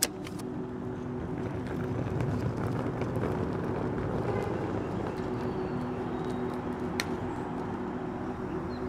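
A vehicle running with a steady low hum. A broad rumble swells and fades in the middle, and there is a sharp click at the start and another about seven seconds in.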